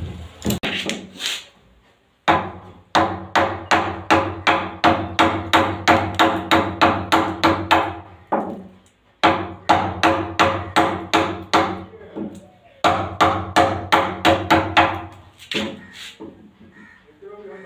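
Claw hammer striking a steel chisel to cut into the edge of a wooden flush door: rapid, even blows about three a second, in three runs with short pauses between them.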